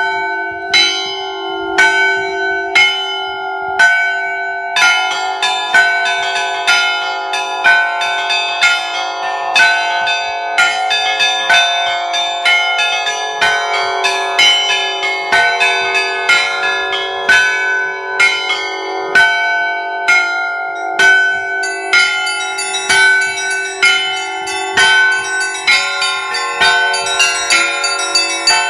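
A set of Russian church bells from the Litex foundry, rung by hand in the Russian zvon style. For the first few seconds one bell is struck about once a second. From about five seconds in, several more bells join, and the strikes fall quickly and overlap in a dense, rhythmic peal.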